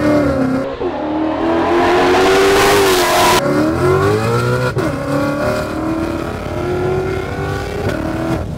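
Car engine accelerating hard through the gears, heard from inside the cabin: the pitch climbs and drops at upshifts about one, three and a half and five seconds in, then settles to a steadier pull.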